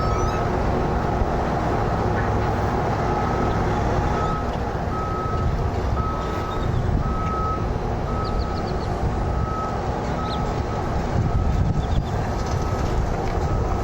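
A heavy vehicle's reversing alarm beeping about once a second, with a short pause near the start, over the low, steady rumble of a diesel engine.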